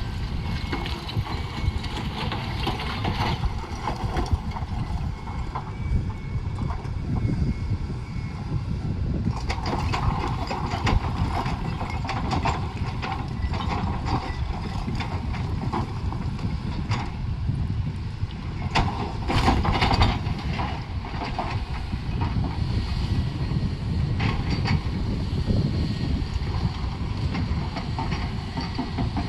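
Heavy earthmoving machinery running with a steady low diesel rumble. Bursts of metallic clatter and scraping come twice, about a third of the way in and again about two thirds in.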